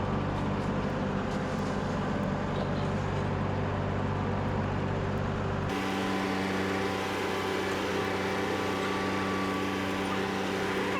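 Skid steer's diesel engine running steadily. About halfway through, the engine note changes suddenly to a higher, more whining tone.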